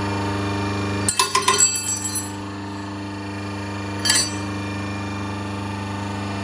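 CB25 hydraulic rebar cutter-bender's electric motor and pump running with a steady hum, while steel clanks and rings: a quick rattle of clanks about a second in, and a single clank about four seconds in.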